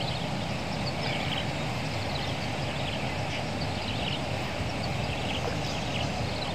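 Steady outdoor background noise: a low rumble with faint, short high chirps repeating about once a second.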